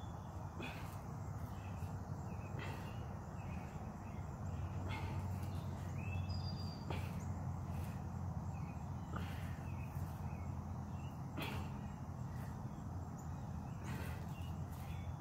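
Outdoor ambience with a steady low hum and a few brief bird chirps about halfway through, over soft short sounds about once a second from someone exercising on a mat.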